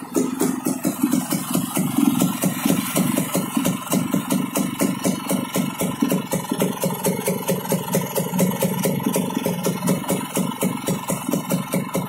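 Honda HD3 motorcycle's air-cooled single-cylinder engine idling steadily with an even beat. The engine is freshly rebuilt at standard bore and being run in.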